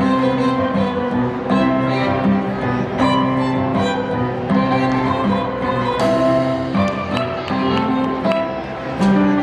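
Floor-routine music played over the gym's sound system: a string arrangement of violin and cello with sustained notes changing about every half second.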